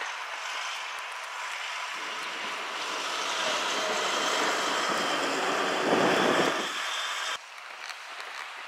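DAF XF articulated tanker truck driving past close by, its engine and tyre noise swelling as it passes and loudest a little past the middle. The sound cuts off abruptly near the end, leaving quieter traffic noise.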